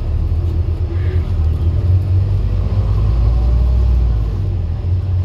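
Scania N230UD OmniCity double-decker bus's five-cylinder diesel engine and drivetrain rumbling, heard from inside the passenger saloon as the bus drives on, with a faint rising whine through the middle as it pulls in gear. The bus is a worn, very tired example.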